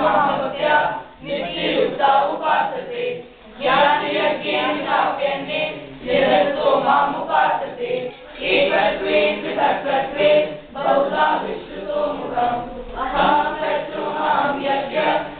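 A group of children's voices chanting a Sanskrit verse in unison, in phrases with short pauses for breath between them.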